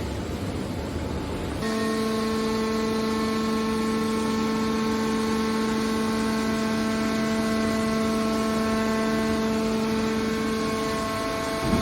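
Hydraulic scrap metal baler running: a steady machine noise that changes abruptly about a second and a half in to a constant multi-pitched hum.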